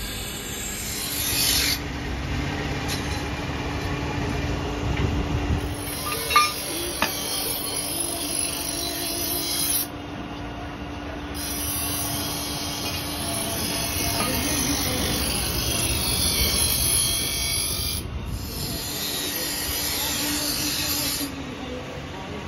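Steady mechanical workshop noise from an electric forge blower and machinery, with a constant low hum and a rasping, whooshing air sound. There is one sharp metallic knock about six seconds in, and the sound's character shifts abruptly a few times.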